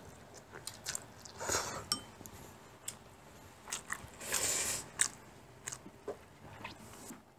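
Mukbang eating sounds: two people slurping and chewing japchae glass noodles, with a few half-second slurps (clearest about a second and a half in and again past four seconds) and scattered light clicks of chopsticks on porcelain dishes.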